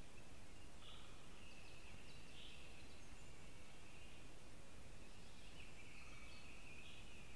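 Faint songbirds singing in the surrounding forest: short high notes repeated every second or so and a few longer high whistles, over a steady hiss.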